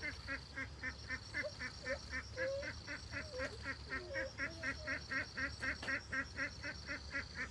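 An animal calling in a fast, even series of short honking calls, about four a second, over a steady high-pitched whine.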